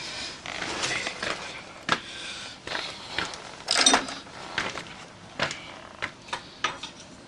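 Hand-tool work on a motorcycle's steering head: a run of sharp metal clicks and knocks with scraping in between, the loudest knock about four seconds in.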